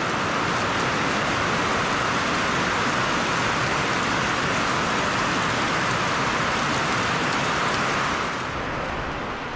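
Heavy downpour: a steady, dense hiss of rain, easing slightly near the end.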